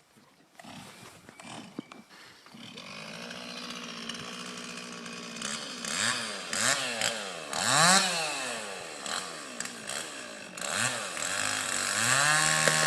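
Two-stroke chainsaw running, starting about half a second in: it idles and then is revved up and down several times, climbing to a high rev near the end.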